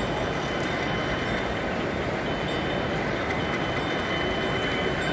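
Model railway trains running on a layout: a steady running rumble with a thin, steady high tone over it.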